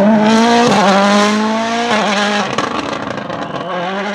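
Toyota Yaris WRC rally car's 1.6-litre turbocharged four-cylinder engine accelerating hard away, its note climbing in pitch with quick upshifts under a second in and about two seconds in, then fading as the car goes into the distance.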